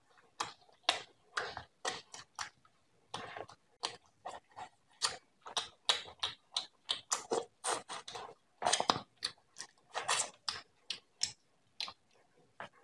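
Close-miked eating sounds of a man eating beef paya with roti: wet chewing and lip smacks in quick, irregular clicks, a few a second, with a short pause about three seconds in.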